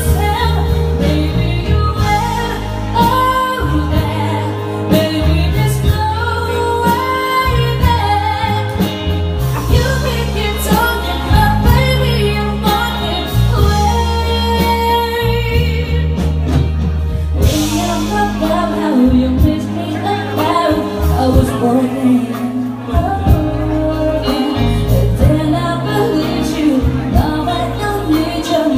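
A woman singing a slow ballad live into a microphone, with musical accompaniment that has a full, steady bass.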